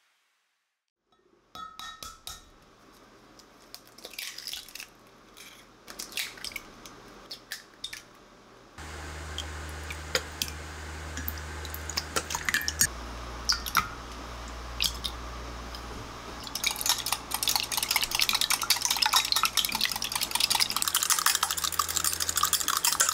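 Eggs being beaten with a whisk in a glass Pyrex measuring jug: a fast run of light clinks and scrapes against the glass through the last third. Before it come scattered taps and clinks of kitchen handling, and a low steady hum starts about a third of the way in.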